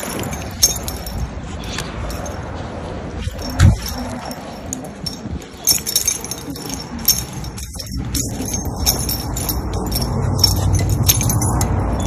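Small metal objects jangling and clinking in irregular clusters over a steady low rumble, with one thump about four seconds in.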